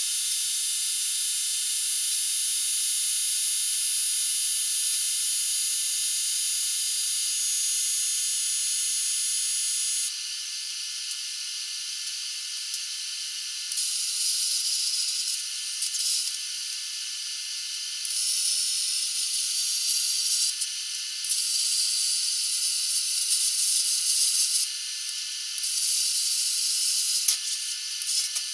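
Longevity Forcecut 80i plasma cutter hissing as it cuts 3/16-inch steel plate at 45 amps. The hiss is steady for about ten seconds, then breaks into a string of shorter cuts that start and stop, with a fainter hiss between them.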